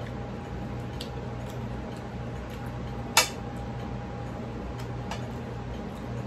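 A metal fork clinking and scraping on a ceramic plate while picking at fried fish: light scattered ticks and one sharp, loud clink about three seconds in, over a steady low hum.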